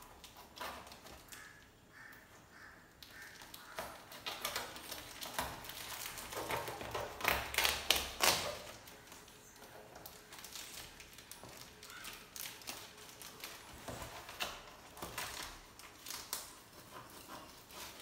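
Kitchen knife slicing and scraping through packing tape on a cardboard box, with tapping, scratching and cardboard rustling as the flap is worked open. It is loudest about seven to eight seconds in, a dense run of crackling scratches.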